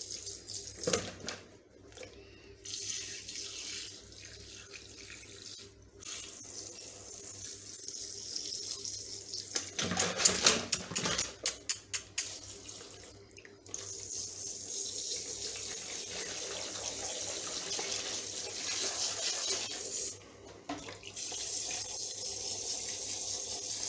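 Handheld shower sprayer hissing as it sprays water onto a wet rabbit in a plastic tub to rinse out the shampoo, with water splashing in the tub. The spray cuts out briefly a few times, and about ten seconds in there is a quick run of sharp clicks and splashes.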